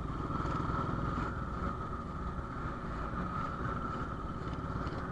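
Royal Enfield Bullet's single-cylinder engine running steadily while riding at cruising speed, a rapid, even thumping with a steady higher hum over it.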